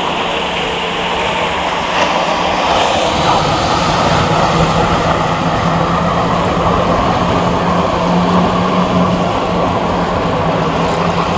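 Boat engine running with a steady drone, growing louder about two seconds in.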